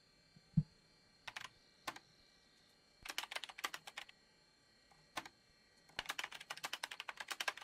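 Computer keyboard typing: scattered key clicks, a short flurry about three seconds in, then a fast run of clicks near the end. A single dull thump sounds just after the start.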